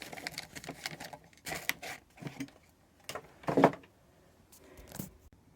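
Rummaging by hand through small parts and packaging: scattered clicks and rustles, with one louder knock about three and a half seconds in.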